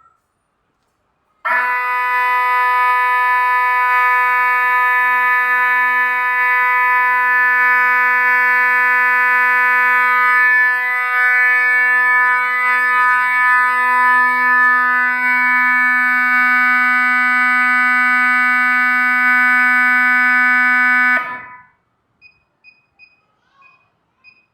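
Siren of an EAI HA-266 zone auto-dialer burglar alarm, set off in a test of its triggering, sounding one loud, steady, unwavering tone for about twenty seconds before cutting off suddenly. A few short high beeps follow near the end.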